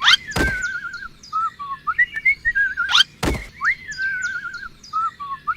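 Bird-like chirps and warbling whistles in a repeating pattern, as from a looped sound effect, with a dull thump about every three seconds.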